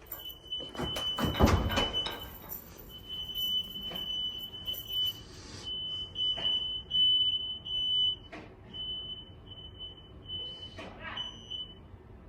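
Smoke alarms sounding, a high-pitched alarm tone that is nearly continuous at first, then breaks into beeps of uneven length. A loud burst of low noise comes about a second and a half in. The uploader thinks cooking probably set them off.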